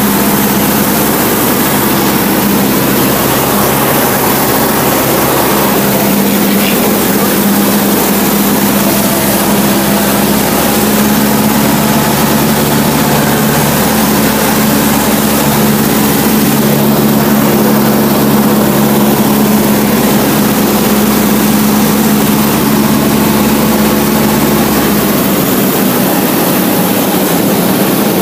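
Cessna 152's four-cylinder piston engine and propeller droning loudly inside the small cockpit. It is a steady drone whose pitch steps slightly a few times.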